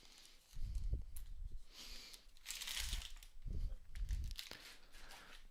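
Plastic trading-card pack wrapper crinkling and tearing as a pack is handled and opened, in a few rustling stretches with soft thumps under them.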